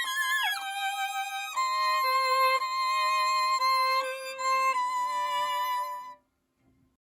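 Violin playing a melody of held notes with vibrato, often two notes sounding together. The playing stops abruptly about six seconds in.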